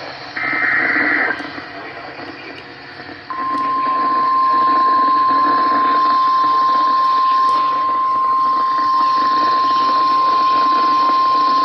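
NOAA Weather Radio alert coming over a weather-radio receiver. It opens with a short buzzy burst of SAME header data, then a couple of seconds of static hiss. About three seconds in, the steady single-pitched 1050 Hz warning alarm tone starts and holds, signalling that a warning message is about to be read.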